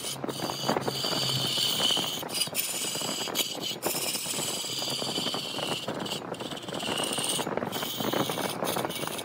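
Wood lathe running with a turning tool cutting into the spinning wood: a rough, continuous scraping noise under a wavering high whine, cut off briefly several times.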